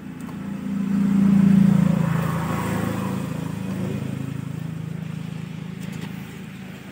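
A motor vehicle's engine going past, swelling to its loudest about a second and a half in and then slowly fading.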